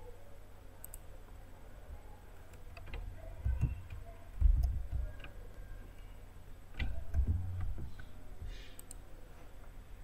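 Scattered computer mouse clicks and keyboard taps, with a few dull thumps that are the loudest sounds, about a third of the way in, near the middle and again about three quarters of the way through.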